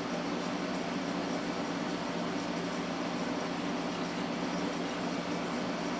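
Steady fan noise with a low, even hum underneath, unchanging throughout.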